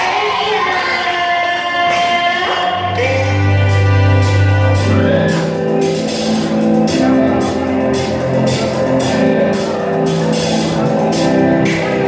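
Pop music with singing. About three seconds in, a deep bass note and a steady, even beat come in under the vocals.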